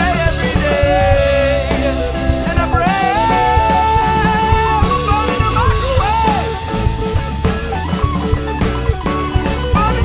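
Indie rock band playing a stretch without lyrics: a drum kit keeps a steady beat under guitars, with a lead line of held notes that bend in pitch.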